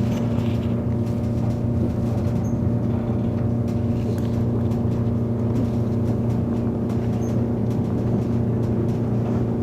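Chiba Urban Monorail car running at a steady speed, heard from inside: the rumble of its rubber-tyred running gear in the suspended track beam, with a constant electric motor hum of several even tones.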